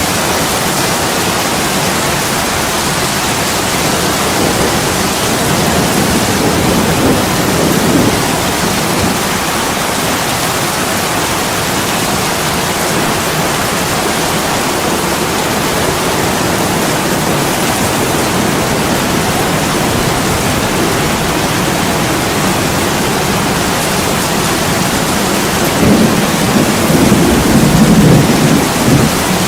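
Heavy rain pouring steadily against a window, a dense even hiss. Two louder low swells rise and fade, one about a quarter of the way in and one near the end.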